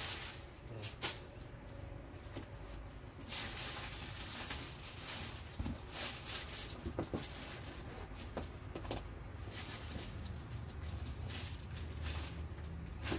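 Plastic packaging and cardboard rustling as items are handled and rummaged out of an open cardboard box, with a few light knocks scattered through and a longer rustle about three seconds in.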